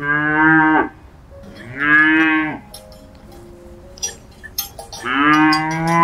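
Cow mooing three times, each a drawn-out pitched call falling off at the end, the last one the longest. Faint clinks of a cowbell sound between the calls.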